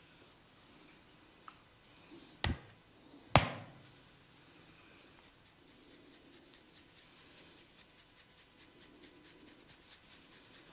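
Hand head massage: two sharp slaps about a second apart, the second louder, then a long run of faint, quick crackles and ticks from fingers working the hair and skin.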